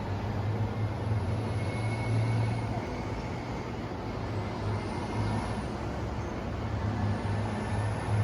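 Steady low rumble of city ambience, with a constant deep hum under a noisy haze.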